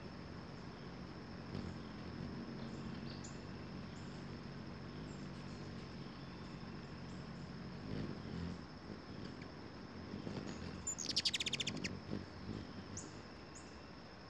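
Hummingbirds at a feeder giving a fast, high chittering rattle just after eleven seconds in, as a second bird arrives and they tangle. Earlier there is a low, steady hum, and a thin high whine runs underneath throughout.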